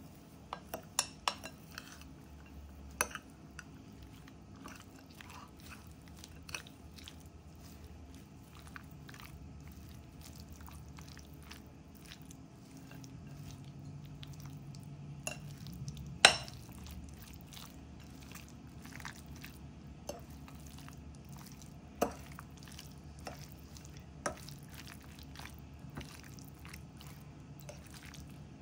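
Metal fork stirring a thick, wet mix of shredded chicken, creamy dressing and chopped walnuts in a ceramic bowl: soft squelching and scraping, broken by sharp clinks of the fork against the bowl. There is a quick run of clinks about a second in, and the loudest clink comes about sixteen seconds in.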